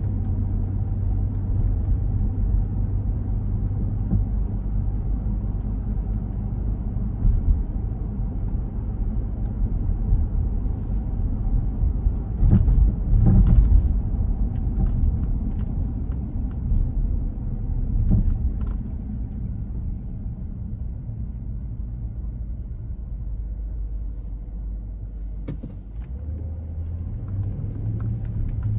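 Car driving, heard from inside the cabin: a steady low engine and road rumble, with a louder, rougher stretch about halfway through. Near the end it settles into a steadier low hum.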